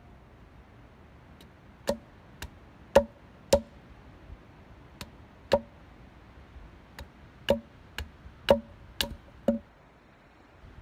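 Hatchet chopping at the lower end of a long wooden stake: about a dozen sharp, ringing wooden knocks at an uneven pace, starting about two seconds in and stopping shortly before the end.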